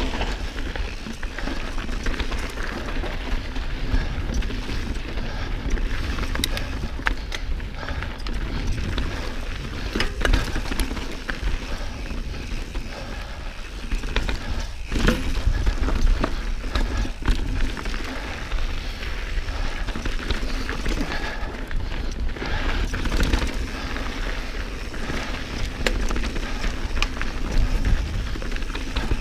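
Santa Cruz Bronson mountain bike ridden over rough, rocky dirt trail: tyre noise on dirt and rock with frequent small knocks and rattles from the bike, over a steady low wind rumble on the microphone.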